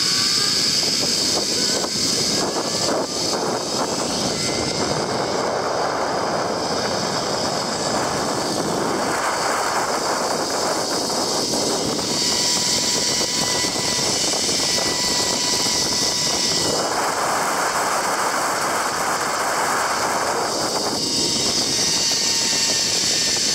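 Zip-line pulley running along a steel cable: a steady whirring whine that rises in pitch in the first few seconds as the rider picks up speed, then holds, under rushing wind noise that swells and fades.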